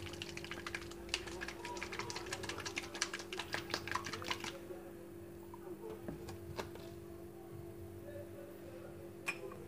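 Small glass bottle of oil and spices shaken by hand, a quick run of light clicks and taps for about four and a half seconds, followed by a few single taps of glass and plastic as the bottle is handled and a dropper is fitted. A faint steady hum runs underneath.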